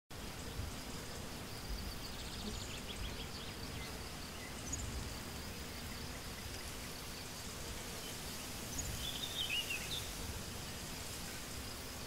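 Open-air countryside ambience: a faint steady high insect hum with a low rumble underneath, and a few small bird chirps, clearest near the end.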